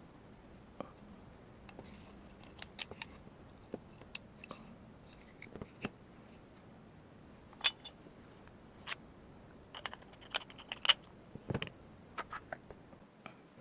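Small metal and plastic parts of an airsoft MWS gas-blowback rifle clicking and tapping as they are handled and fitted during hand assembly. The clicks come irregularly, with a quicker run of sharper clicks about ten to eleven seconds in.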